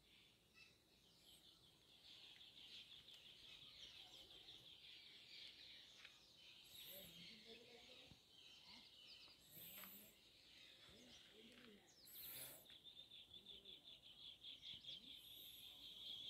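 Near silence with faint outdoor bird chirping: a steady thin high chirring and a few brief higher calls scattered through.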